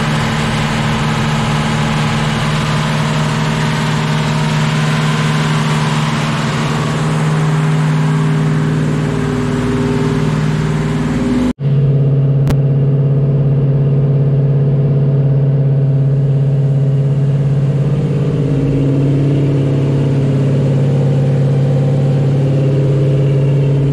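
Mopar 440 big-block V8 running steadily during break-in of a freshly fitted camshaft, heard first at the engine bay and then from the exhaust at the rear of the car, with a brief break about halfway through.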